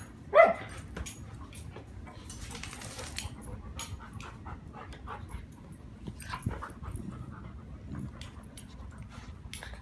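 A poodle and a small puppy play-wrestling: a short, sharp high-pitched yelp about half a second in, then scuffling, scattered clicks and dog whimpers and panting.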